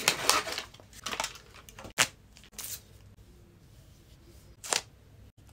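Paper lid being peeled off a plastic Dexcom sensor applicator package, rustling and crinkling for about a second. Then sharp plastic clicks follow, one about two seconds in and another short one near the end.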